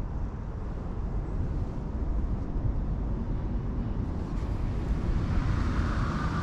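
Steady low rumble of wind buffeting the microphone outdoors. A few faint high chirping notes come in near the end.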